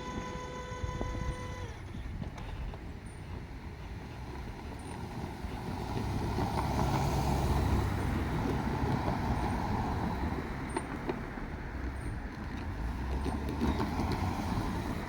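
A JR Shikoku Series 185 diesel train's horn holds one steady note and stops about two seconds in. After that comes the low rumble of the diesel multiple unit running, swelling in the middle and then easing a little.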